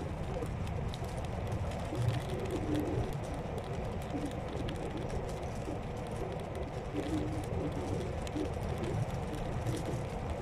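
Electric scooter rolling along a forest path: a steady low rumble from the tyres and frame, with scattered small ticks.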